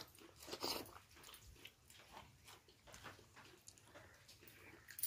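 A person chewing and eating close to the microphone: quiet, irregular mouth and chewing sounds, with a louder one a little under a second in.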